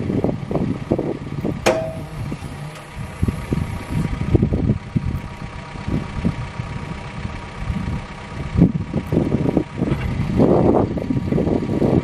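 CAT 420F backhoe loader's diesel engine running, a steady faint whine riding over an uneven low rumble.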